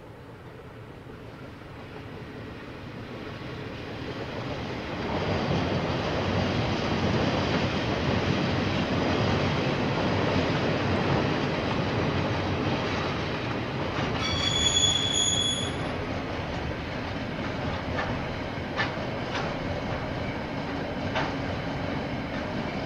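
KiwiRail freight train passing. Its rumble builds over the first five seconds and then settles into the steady roll of wagons. About fourteen seconds in there is a brief high-pitched wheel squeal, and a few sharp clicks of wheels over the rail follow near the end.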